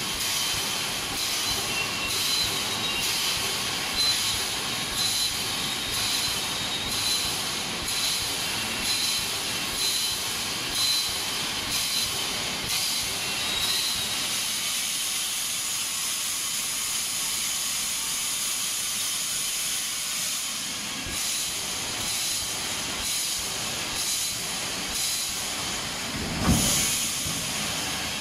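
A 3-8mm automatic wire mesh welding machine running, its pneumatic air cylinders hissing under a regular beat of welding strokes about once a second. A louder low thud comes near the end.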